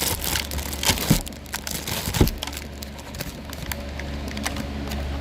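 Cookie packaging crinkling and rustling as it is handled, busiest for the first two seconds or so, then thinning to a few light crackles over a steady low hum.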